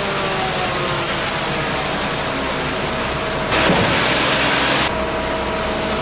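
Truck engine running steadily at a concrete mixer truck and pump, its note easing down slightly at the start. About halfway through, a loud hissing rush lasts for about a second and a half, then stops suddenly.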